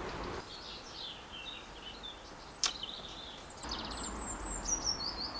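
Songbird chirping in the background, ending with a short run of high notes stepping down in pitch, over faint outdoor noise. One sharp click sounds about halfway through.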